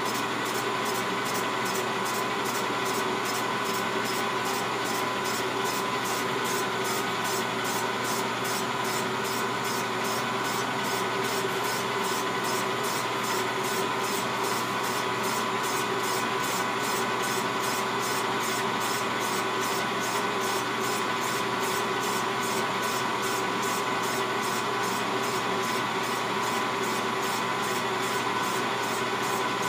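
Metal lathe running steadily while cutting an aftermarket Stihl MS 660 chainsaw cylinder: a steady machine whine with an even, fast ticking about three or four times a second.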